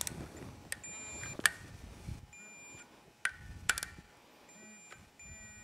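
Electronic torque wrench beeping in short double-toned beeps, several times, as the clutch spring bolts are brought to 6 foot-pounds. Sharp ratchet clicks sound between the beeps.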